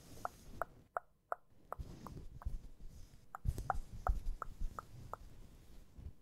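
A soft blanket handled and rustled close to the microphone, with a regular series of light ticks, about three a second.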